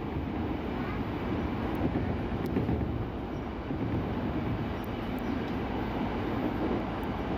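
KRL Commuter Line electric train running at speed, heard from inside the carriage: steady running noise of the wheels on the rails.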